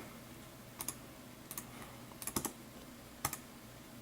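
About five separate sharp clicks at a computer, spaced roughly a second apart, as a list is selected and copied.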